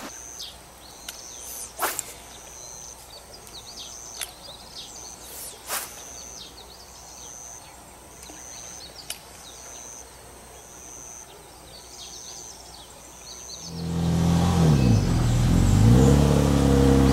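Quiet outdoor ambience with bird chirps and a high note repeating about once a second. About 14 seconds in, a Nissan Fairlady Z33's V6 engine comes in loudly, its pitch dipping and then rising again.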